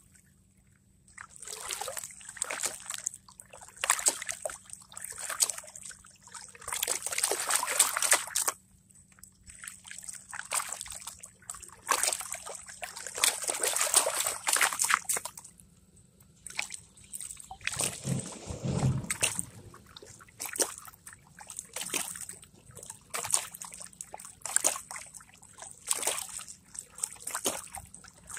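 River water sloshing and splashing as a gold pan is swirled and tipped in the shallows, washing sand and gravel over its rim, in irregular swashes every second or two. One deeper, fuller slosh comes about two-thirds of the way through.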